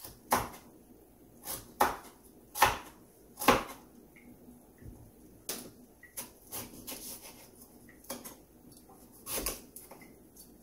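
Kitchen knife cutting squash on a wooden cutting board, the blade knocking the board in irregular strokes. The loudest knocks come in the first four seconds, with softer ones after and one more firm knock near the end.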